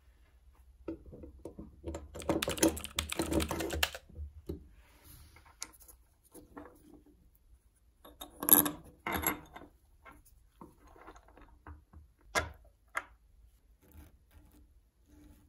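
Small metal and plastic pencil-sharpener parts clicking and rattling as they are fitted together by hand. A dense run of quick clicks lasts a few seconds near the start, followed by a couple of louder clattering knocks about halfway through and two single sharp clicks near the end.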